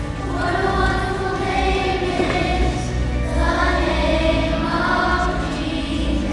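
Choir singing a song over musical accompaniment, with long held notes.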